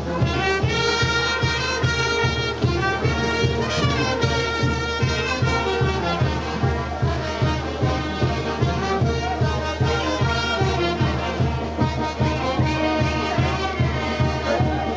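Brass band playing a festive tune, brass carrying the melody over a steady bass drum beat.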